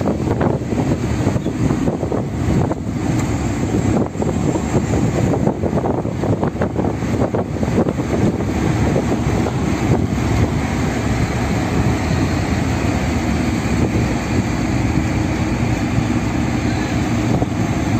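Steady low rumble of road and wind noise from a car travelling at highway speed, with some brief buffeting in the first several seconds.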